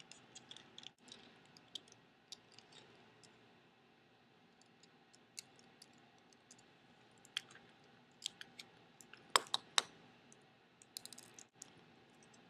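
Scattered faint clicks and ticks of a small Torx screwdriver and the mouse's plastic case parts being handled as a screw inside is taken out. The two sharpest clicks come close together about nine and a half seconds in.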